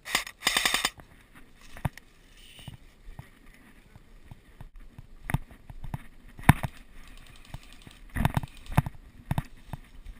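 Airsoft guns firing in rapid automatic bursts: a quick string of shots in the first second, scattered single shots, then another cluster of shots about eight seconds in.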